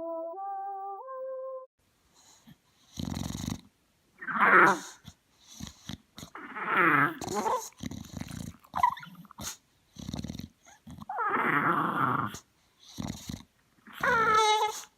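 A dog making a series of drawn-out, growly vocal calls, about half a dozen with short pauses between them, some sliding down in pitch.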